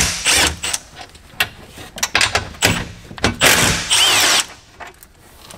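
Cordless power tool with a socket running in several short spurts, then one longer run of about a second, backing out the 13 mm bolts that hold a power midgate window regulator.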